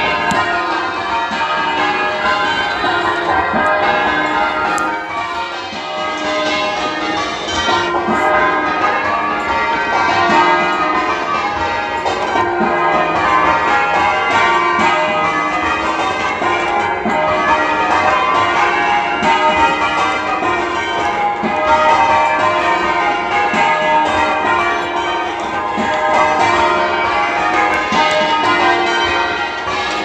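A ring of ten English church bells (tenor 19 cwt in E-flat; mostly Warner and Thomas Mears bells) rung full circle in change ringing, a continuous even stream of overlapping strokes.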